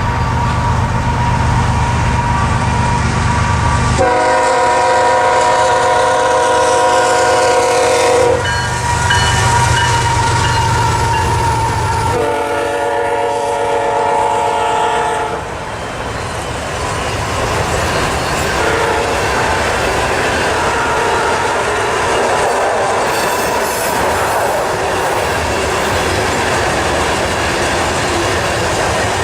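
A passing train: the locomotive's low diesel rumble, then its air horn sounding two long blasts of a several-note chord, the first about four seconds in. After that comes the steady rattle and clatter of the cars rolling by.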